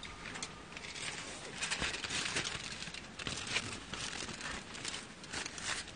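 Aluminium foil crinkling in irregular bursts as it is handled and folded around a fish on a wire grill rack.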